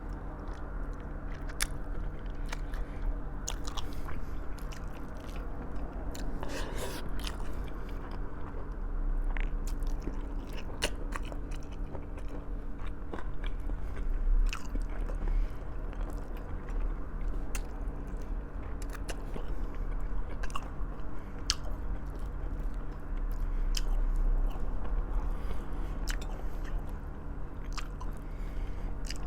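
Close-up eating sounds: biting into and chewing soft braised pork trotters (humba), with scattered sharp clicks and crunches. A steady low hum runs underneath.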